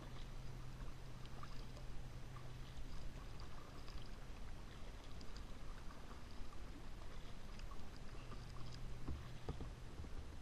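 Kayak paddle strokes: the blades dipping and dripping, with water trickling and lapping along the hull in many small, faint splashes. A steady low hum runs underneath for part of the time.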